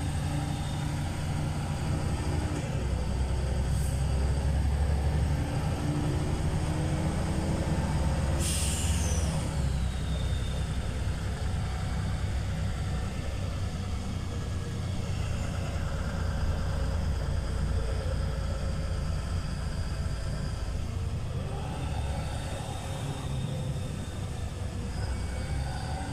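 Inside a LiAZ 5292.22 city bus on the move: the engine and drivetrain run steadily, their pitch shifting a few times with speed. About eight seconds in comes a sudden burst of compressed-air hiss that falls in pitch over a couple of seconds, typical of the bus's pneumatic air system venting.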